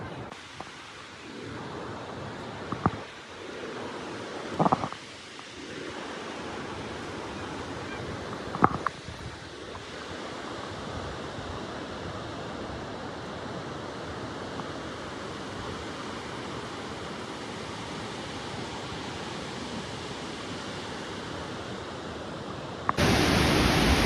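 Steady rush of falling water from a waterfall, with a few sharp knocks about three, five and nine seconds in. About a second before the end the rush suddenly becomes much louder.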